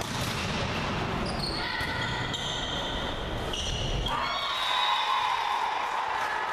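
Volleyball rally on an indoor court: the ball is struck and thuds off the floor, with players' calls and short high squeaks. About four seconds in the ball lands and a shout goes up as the point is won.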